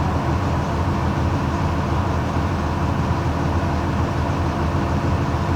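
Mercedes-Benz OF-1721 bus's OM-366LA six-cylinder turbo diesel engine running at a steady, unchanging pitch.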